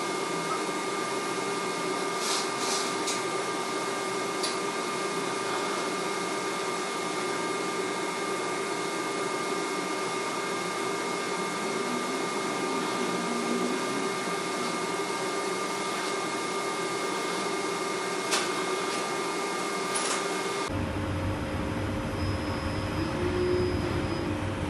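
Miller robotic welding cell running: a steady hiss with faint whining tones and a few light clicks. Near the end the sound changes abruptly to a lower, humming machine noise.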